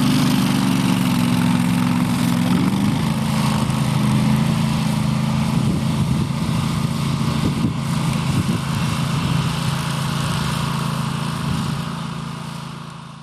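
Grillo Climber 9.21 ride-on slope mower running at work as it climbs a steep grassy bank, a steady engine drone with the cutting deck going, its note shifting slightly about two and a half seconds in. The sound fades out near the end.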